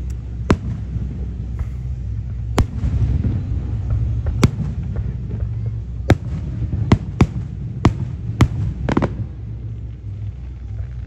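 Aerial firework shells bursting: about eight sharp bangs at irregular spacing, coming faster in the second half, over a steady low rumble. A brief crackle follows soon after the last bang.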